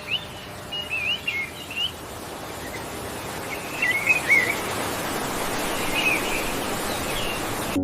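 Birds chirping in short warbling bursts over a steady hiss of outdoor ambience, starting and stopping abruptly.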